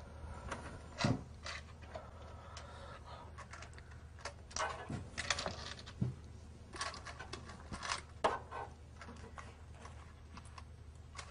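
Loose coins clinking and scraping on a counter as they are counted out by hand, in irregular clicks and rattles.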